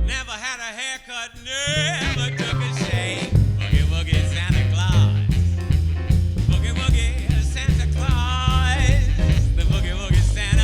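Live swing band playing 1930s-style big-band music. A wavering melody line runs over a thin backing for about the first two seconds, then the bass and drums come in with a steady beat under the melody.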